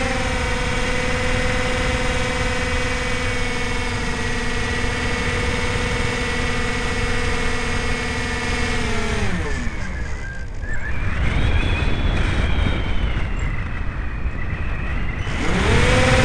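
Electric motor and propeller of an RC plane heard from an onboard camera, with wind rushing over the microphone. A steady whine holds for about nine seconds, drops away as the throttle is cut, leaving the plane gliding with mostly wind noise, and rises back to full pitch near the end as the throttle is opened again.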